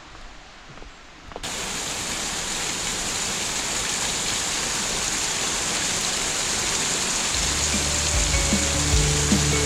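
Steady roar of a waterfall's falling water, starting suddenly about a second and a half in. A song's bass line and beat come in under it near the end.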